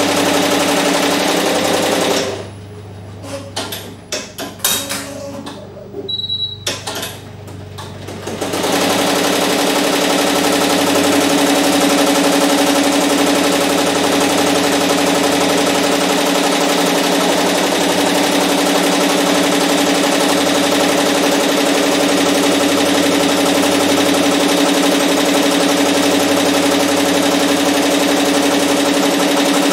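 Barudan multi-needle embroidery machine stitching a logo onto a cap at speed: a fast, steady rattle over a hum. A couple of seconds in it stops for about six seconds, with a few clicks, then starts stitching again.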